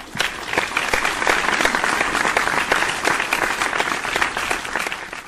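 Audience applauding: many hands clapping together, swelling quickly at the start and fading away near the end.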